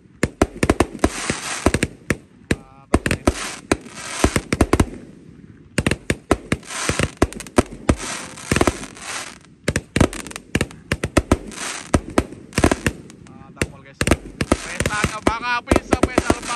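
A barrage of size-1.2 roman candles firing together: rapid, irregular bangs of shots launching and stars bursting overhead, with crackling between the reports.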